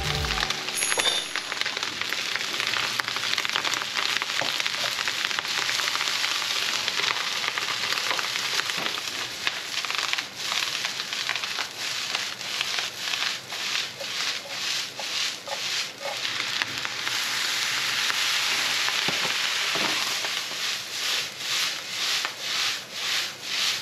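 Chopped cabbage sizzling as it is stir-fried in a frying pan. From about halfway through, and again near the end, the sizzle pulses about twice a second as the pan is tossed.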